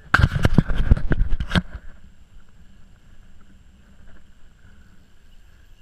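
Hand knocking and scraping against a kayak-mounted action camera and its mount as it is grabbed and swung round, a dense run of knocks and rubbing for about a second and a half. Then only faint steady background with a thin high whine.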